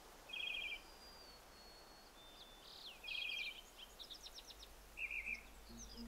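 Wild birds calling: three short trilled calls about two and a half seconds apart, with a thin high whistle and quick chirps in between, over a faint steady hiss.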